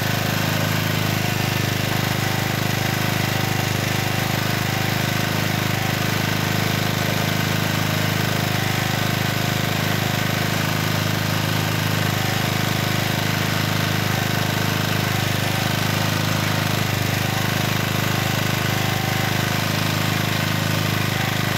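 Excell HD1500 portable generator's Mitsubishi four-stroke engine running at a steady speed, producing output voltage.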